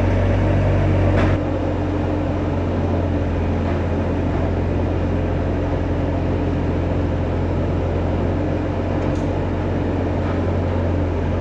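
Bobcat S250 skid-steer loader's diesel engine running steadily; its note drops and becomes a little quieter about a second in, then holds steady.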